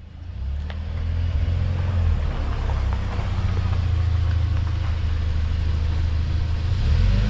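UAZ Patriot SUV running, a steady low rumble that builds over the first second.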